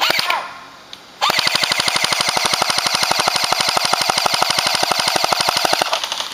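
Airsoft electric gun firing one long full-auto burst of rapid, evenly spaced shots, starting about a second in and lasting about four and a half seconds, with the whir of its motor and gearbox under the clicks.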